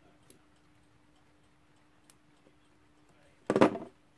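A Westclox Baby Ben alarm clock movement is handled with a small screwdriver and fingers, giving a few faint clicks. About three and a half seconds in there is one brief, loud clunk as the movement is handled and turned over.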